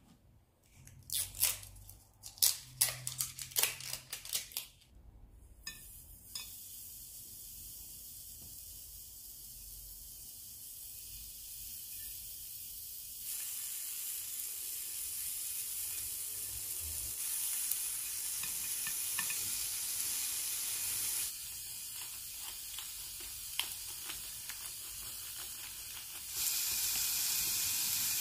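Raw pork slices sizzling on a hot ridged grill plate. A handful of sharp clattering knocks in the first few seconds, then a steady sizzle that grows louder in steps as more slices go on.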